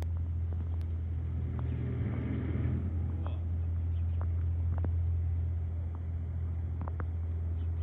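A vehicle's engine, a steady low drone, with a few faint light clicks and knocks over it.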